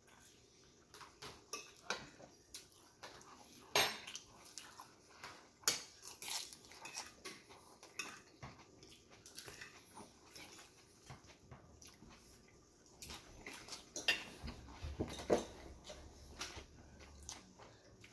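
Metal fork clinking and scraping on a ceramic plate while food is scooped up, in irregular sharp clicks.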